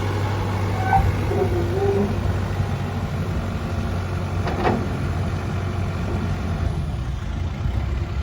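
Terex TLB840 backhoe loader's diesel engine running steadily while the machine is worked. A few short squeaky tones come about a second in, and a brief chirp comes around the middle.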